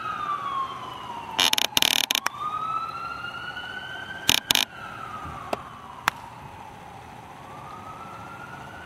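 A siren wailing, its pitch sliding slowly down, up and down again. About one and a half seconds in comes a cluster of loud, sharp clatters, then two more sharp cracks about four and a half seconds in, with a few lighter clicks after.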